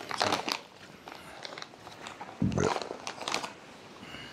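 A freeze-dried meal pouch being torn across at its tear notch and handled, crinkling and crackling in a few short bursts, with a soft thump about two and a half seconds in.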